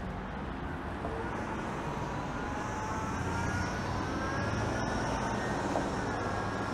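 Road traffic passing on a busy multi-lane street, a steady rush of cars, vans and a pickup. Through it runs an engine whine that slowly rises in pitch as a vehicle accelerates.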